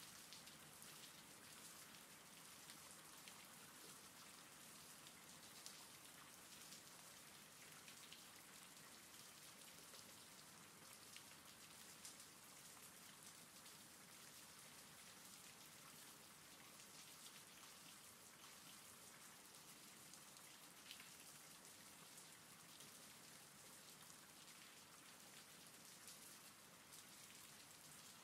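Faint steady rain: an even hiss with scattered light drop ticks.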